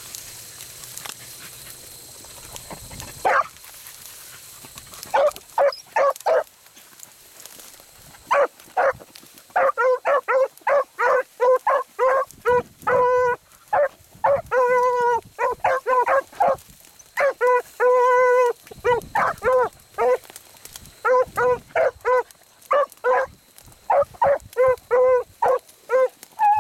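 Beagle baying on a rabbit's scent line: one bay about three seconds in, then from about five seconds a near-constant string of short, ringing bays, a few drawn out longer.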